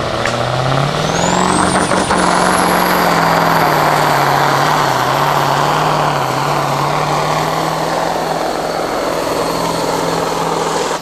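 Competition pulling tractor's engine running flat out through a pull. Its note climbs over the first two seconds and then holds, with a high whine rising alongside it and staying up.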